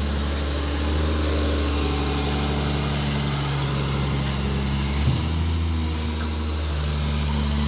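Sinotruk HOWO dump truck's diesel engine idling steadily, with a faint high whine over the low engine hum. There is a small knock about five seconds in.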